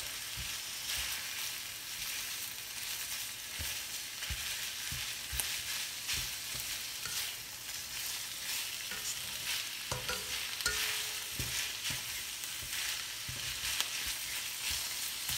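Minced beef and diced onion sizzling in an oiled nonstick wok while a spatula breaks up and stirs the meat: a steady frying hiss with frequent soft knocks and scrapes of the spatula against the pan.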